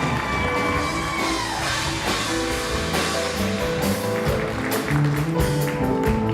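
Live rock-and-roll band vamping with bass, drums and keyboards. A held high chord at the start slides down and stops about a second and a half in. Some audience applause runs under the music.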